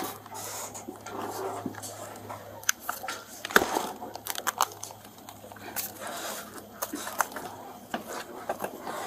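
Close handling noises as a padded fabric case is worked by hand: scattered rustles, clicks and knocks, with one sharper knock about three and a half seconds in, over a low steady hum.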